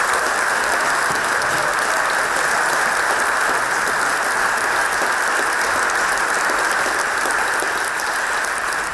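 Large audience applauding: loud, dense, steady clapping.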